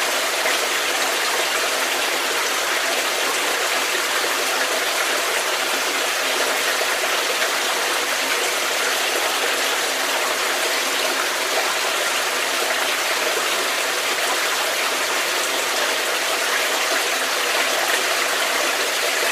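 Stream flowing in a cave: a steady, even rush of water.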